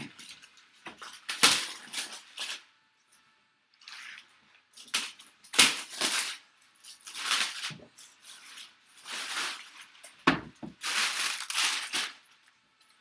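Cardboard box and packing material being torn open and crumpled by hand in irregular bursts of rustling and tearing, with a few sharper crunches.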